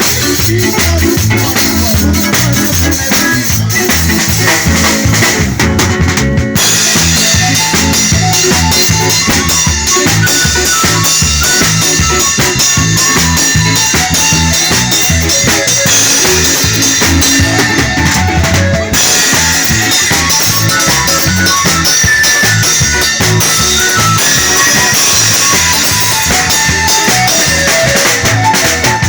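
Live band music with a drum kit keeping a steady beat under melodic instrument lines.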